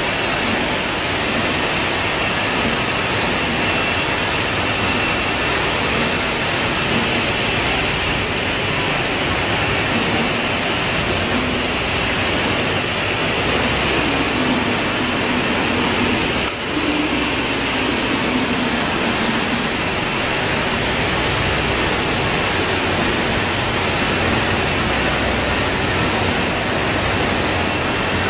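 Steady machinery noise of an ice pop filling, sealing and pasteurization line: a constant hiss with hum under it and a faint high whine running through.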